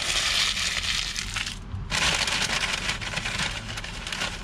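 Paper burger wrapper being crumpled and scrunched in the hands, a dense crackling in two stretches with a short break just before two seconds in.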